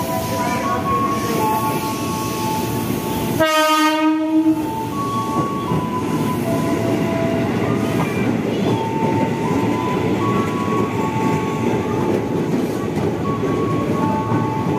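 KRL commuter electric train running through the station: a steady rolling rumble with whining motor tones that step between pitches. About three and a half seconds in, a train horn sounds once for about a second.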